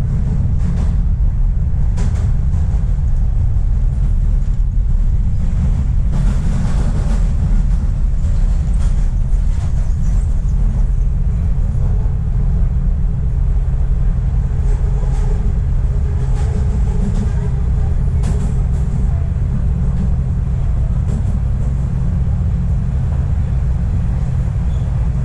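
Toronto subway train running between stations, heard from inside the car: a steady low rumble and hum from the wheels and motors, with occasional clicks and rattles.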